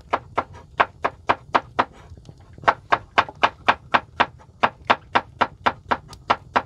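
Knife chopping vegetables on a cutting board in quick, even strokes, about four a second.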